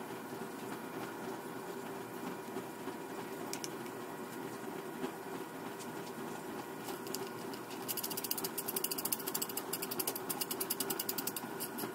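Hand ratchet clicking rapidly as it runs down a sealant-coated bolt into the front timing case of a Mercedes-Benz M119 V8. The clicking starts about two thirds of the way in, after a stretch of faint steady hum and a few single clicks.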